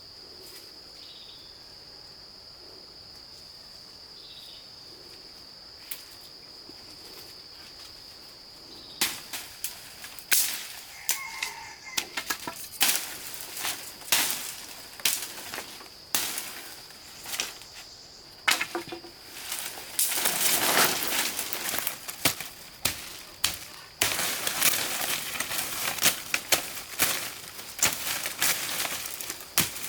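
A steady high insect drone. About a third of the way in, a run of irregular sharp knocks begins, later mixed with longer stretches of scraping and rustling noise.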